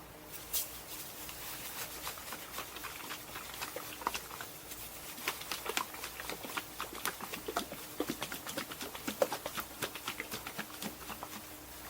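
Bed liner paint and hardener containers being handled while the hardener is mixed in: rapid, irregular light clicks and taps, busier from about five seconds in.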